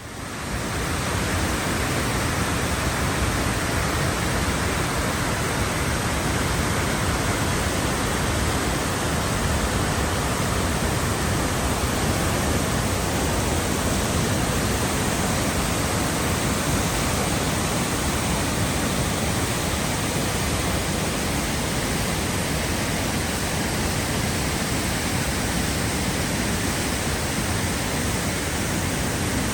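Falling water rushing steadily: an even, unbroken hiss with no breaks or changes.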